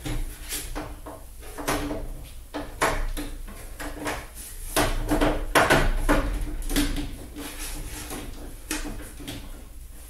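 Irregular clicks, knocks and rattles of hands working at the cover of an overhead light fixture, the busiest and loudest about halfway through, over a low steady hum.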